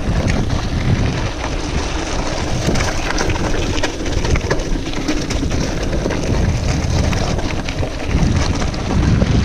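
Wind buffeting an action camera's microphone while a Specialized Crave SL single-speed mountain bike descends a rocky dirt trail, with tyres crunching over stones and many short clicks and rattles from the bike over the rough ground.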